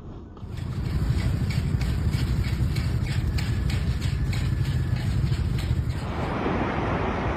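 Deep rumble of road traffic with a run of rapid clicks, about three a second. About six seconds in it gives way to a broad rush of wind on the microphone.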